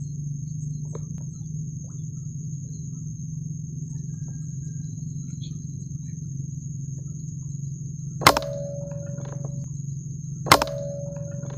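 Two air-rifle shots about two seconds apart, each a sharp crack followed by a brief ringing tone, over a steady low hum and a continuous high thin whine.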